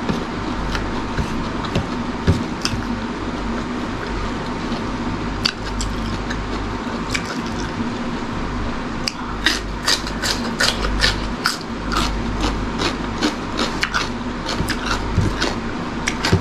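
Close-up eating sounds: soft chewing at first, then from about nine seconds in a rapid run of crisp crunches as a raw cucumber slice is bitten and chewed, over a steady background hum.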